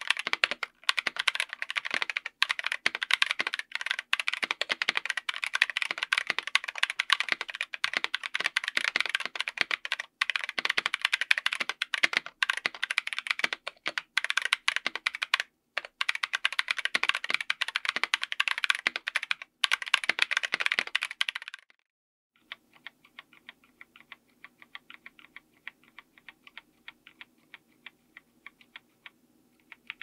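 Fast typing on a mechanical keyboard with Kailh Super Speed Silver linear switches, MT3-profile PBT keycaps, FR4 plate and aluminium case: a dense stream of key strikes. About twenty-two seconds in the typing stops, and after a short pause single keys are pressed one at a time, fainter, over a faint low hum.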